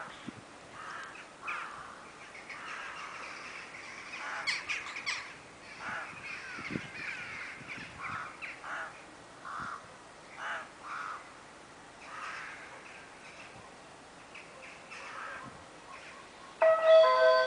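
Crows cawing over and over, short harsh calls. Near the end a train horn suddenly sounds loudly, several notes at once, and holds.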